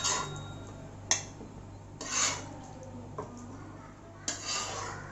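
A cooking utensil scraping and knocking against a pan as cooked onion-tomato masala is scooped out: a few sharp taps, about three, between short scrapes.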